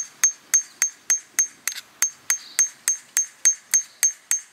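Hammer tapping a steel chisel against shale in quick, even strokes, about three or four a second, each with a short metallic ring: carefully chipping a fossil free from the rock.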